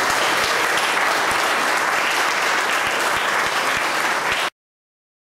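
Audience applauding after a poetry reading, a dense patter of many hands clapping that cuts off abruptly about four and a half seconds in.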